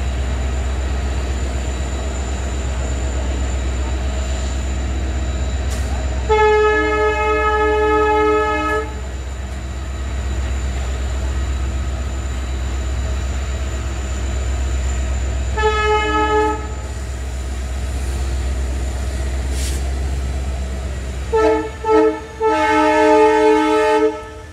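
Locomotive horn sounding in a long blast about six seconds in and a shorter one near the middle, then a quick series of short blasts near the end, over a steady low hum of an idling locomotive engine at the station.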